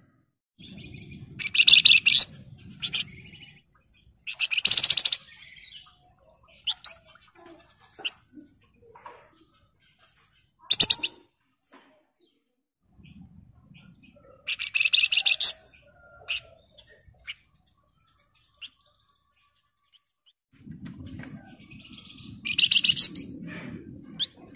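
A flamboyan (wergan Jawa) songbird calling in short, high, tightly rattling trills, five loud bursts spread through the stretch with softer chirps between them. A low rumbling noise sits under some of the calls.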